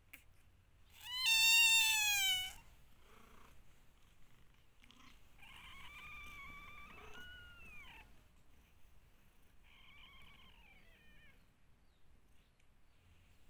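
Newborn kitten mewing: one loud, high, slightly falling cry about a second in, then fainter, longer cries in the middle and near the end.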